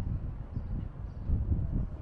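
Wind gusting over the microphone: an uneven low rumble that swells and eases in gusts.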